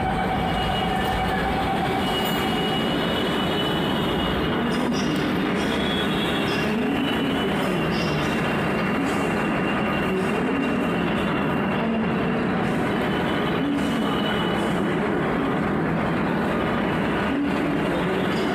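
Steady noise of a metro train and its station platform, level throughout, with thin high squeals that come and go.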